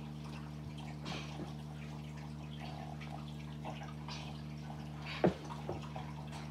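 A dog and a person play-wrestling on a carpeted floor: soft scuffling and small clicks with a few sharp thumps, the loudest about five seconds in, over a steady low hum.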